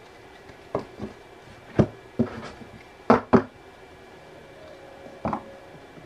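Tarot cards and card piles being set down and tapped on a cloth-covered table: a string of about seven short knocks, the loudest a quick pair about three seconds in.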